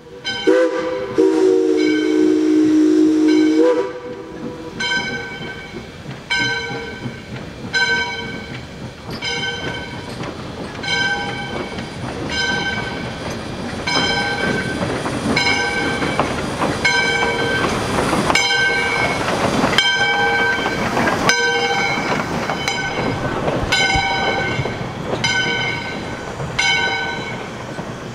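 Steam locomotive No. 40, a 1920 Alco-Brooks 2-8-2, blows its whistle in one long blast of several tones lasting about three and a half seconds, then its bell rings steadily, about one stroke every three-quarters of a second. From about halfway, the hiss and chuff of the locomotive's steam exhaust build under the bell as it works.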